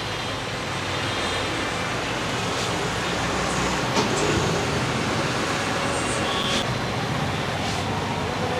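Steady rumble and hiss of street traffic, with a single sharp click about halfway through and a brief high beep a little later.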